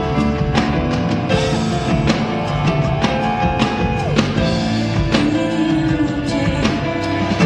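Live rock band playing, recorded from the audience: drums keeping a steady beat under held bass and keyboard notes, with a woman's voice singing long, gliding notes.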